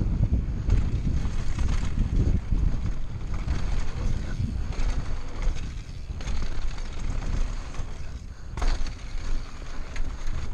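Wind buffeting an on-board camera microphone as a downhill mountain bike runs fast down a dry gravel trail, with tyre noise on the loose surface and scattered knocks and rattles from the bike over bumps.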